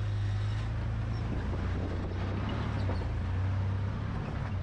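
Toyota Land Cruiser FZJ80's inline-six engine running low and steady as the truck crawls over slickrock, heard from underneath the vehicle.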